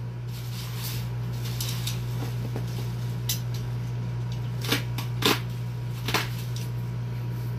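Black plastic parcel wrapping being torn and pulled open by hand, with a few sharp crinkling rips in the second half, over a steady low hum.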